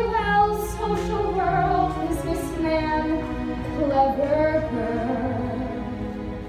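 A young woman singing a musical-theatre song solo, drawing out long notes with a wavering vibrato.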